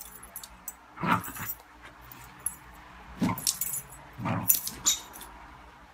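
Metal dog collar tags jingling in short bursts as the dog moves, with three short low sounds from the dog about one, three and four seconds in.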